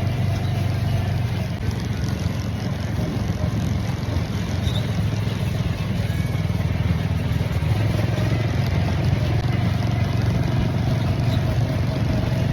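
Steady low rumble of a narrow-gauge steam train under way, heard from aboard a passenger car, with a faint steady whine over it.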